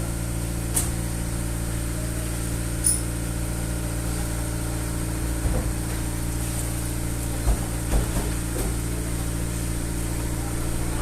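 An engine idling steadily, a low even drone, with a few short knocks and clicks, most of them in the second half.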